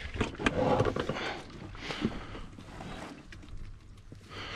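Water splashing and sloshing around a landing net holding a carp alongside an inflatable boat, with a few small knocks of the net being handled, busiest in the first second.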